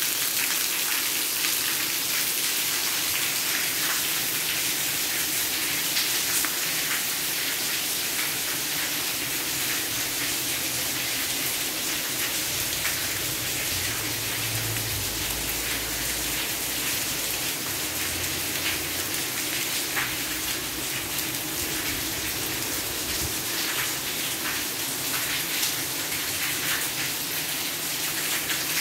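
Heavy rain falling steadily: a dense, even hiss full of sharp drop and splash ticks.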